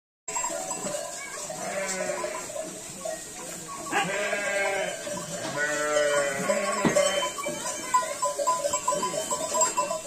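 Sheep bleating: three long, wavering bleats about two, four and six seconds in, with a single sharp click shortly after the last.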